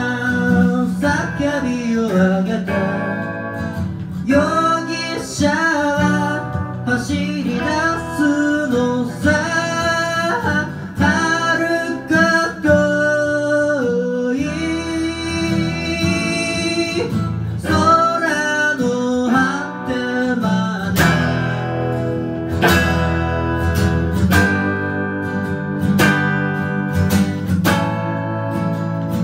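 A woman singing over acoustic and electric guitars; about twenty seconds in the singing stops and the guitars carry on with strummed chords.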